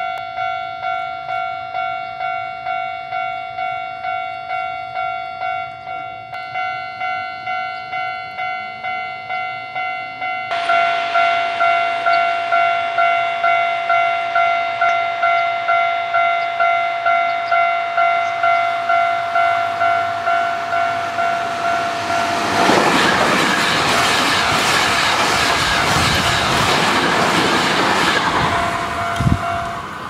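Japanese level-crossing alarm bell ringing its electronic ding-ding at a steady even pace, growing louder about ten seconds in. From about two-thirds of the way through, a Hankyu 9300 series electric train passes at speed with a loud rush of wheels on rail, and the bell stops as the train clears.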